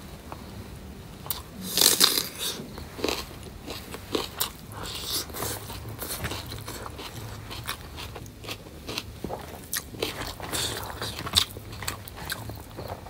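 Close-up eating sounds of a person chewing a mouthful of rice and curry eaten by hand, with many irregular sharp clicks from the mouth and fingers working the rice on a banana leaf, the loudest about two seconds in.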